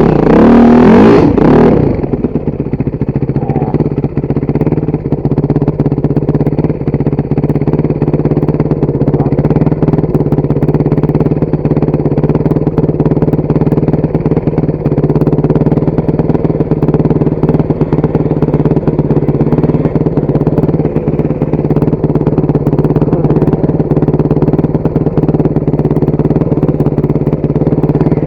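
Motorcycle engine revving up and down over the first two seconds, then running steadily at an even speed.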